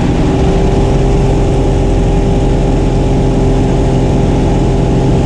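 Jump plane's engine running in a steady, loud drone.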